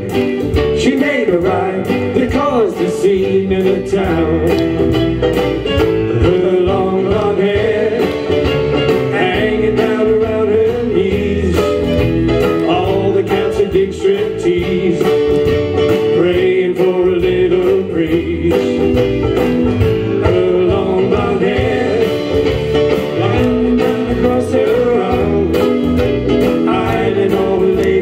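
Live band music: a male voice singing a music-hall style novelty song over a strummed banjolele, with guitar and piano backing.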